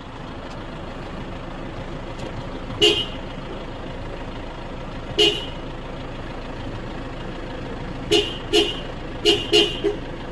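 Toyota Innova's car horn tooted in short blasts: one about three seconds in, another about five seconds in, then a quick run of five near the end, over a steady background noise.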